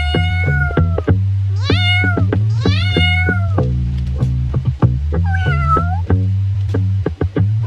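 Cat meowing four times in long, drawn-out meows, the last one higher-pitched, over background music with a steady bass and beat.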